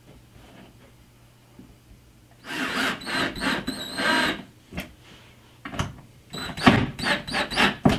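Cordless drill/driver driving round-head wood screws into wood. The motor runs for about two seconds partway in, then in several short bursts near the end as the screws are snugged home.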